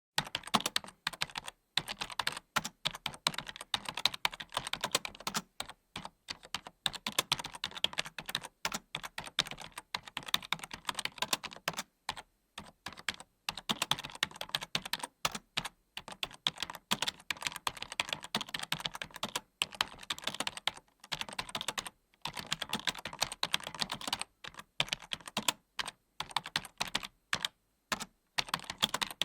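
Computer keyboard typing: fast, irregular runs of key clicks broken by short pauses.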